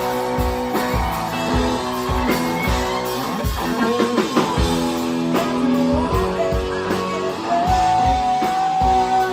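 A live rock band playing an instrumental passage: guitars over bass and a drum kit keeping a steady beat, with a lead note held for a second or two near the end.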